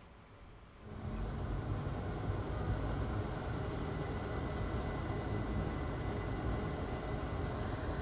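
A small electric blower switches on about a second in and runs steadily, with a low rumble and a faint high whine.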